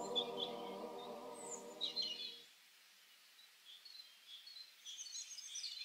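Background music of sustained held tones, ending about two and a half seconds in, with small birds chirping over it and carrying on alone after it stops.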